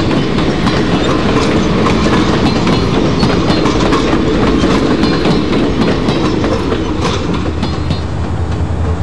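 HO-scale model freight cars rolling past on the track, a steady rumble with rapid clicking of wheels over the rail joints. Near the end the sound changes to a lower, steadier hum.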